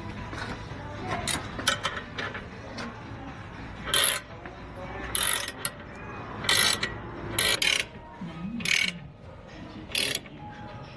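Hand ratchet wrench being worked, a short burst of pawl clicking on each return stroke, about once a second.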